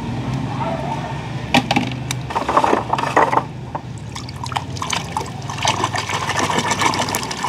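A hand splashing and sloshing about in a shallow tub of water, with several sharper splashes among the churning.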